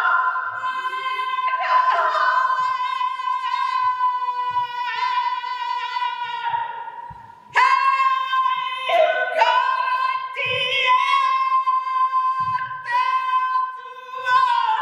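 A woman singing unaccompanied in long held notes on a steady high pitch, with a short break about seven and a half seconds in.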